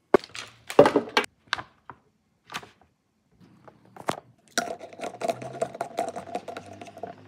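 Handling noise from a plastic soap dispenser and its refill: sharp crackles and clicks of plastic being handled in the first second and a half, a few single clicks, then a long run of rapid grating ticks as the plastic pump top is screwed down onto the glass bottle.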